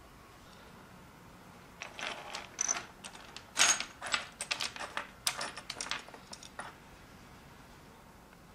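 Tiny plastic miniature food and bottle toys clicking and clattering against each other as a hand rummages through a pile of them on a wooden floor. It is a quick cluster of small rattles with one louder clack partway through.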